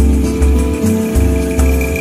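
Background music with a steady beat and a deep, pulsing bass line.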